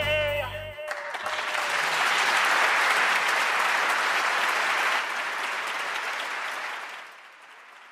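Band music and a held sung note end within the first two seconds, then applause takes over, dropping a little about five seconds in and fading near the end.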